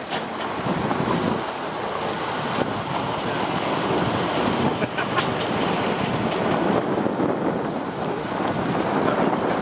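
Wind buffeting the microphone in a steady rush, over the running noise of a vehicle on the move.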